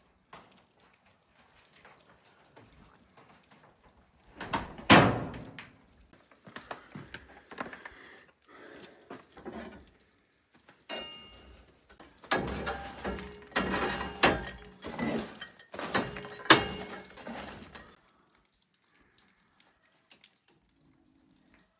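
Knocks and clatter of things being handled: one loud knock about five seconds in, then a busy run of knocks and rattles for several seconds near the middle.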